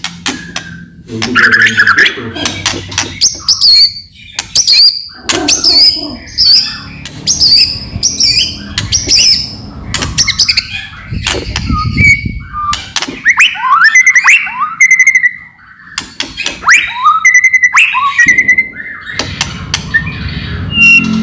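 White-rumped shama (murai batu) singing loudly in full song: a fast jumble of harsh rattling clicks and clear whistled notes that slide up and down.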